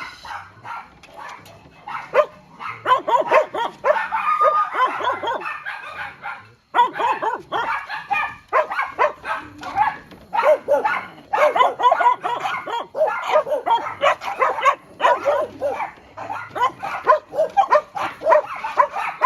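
Several dogs barking and yipping over one another in quick, overlapping barks, with a brief break about seven seconds in.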